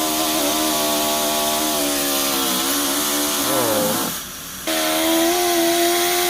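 Harbor Freight Central Pneumatic air die grinder running free: a steady whine over air hiss. About three and a half seconds in its pitch sags, the sound cuts out briefly and then comes back at a steady pitch. It is being test-run after reassembly to check for drag on the spindle.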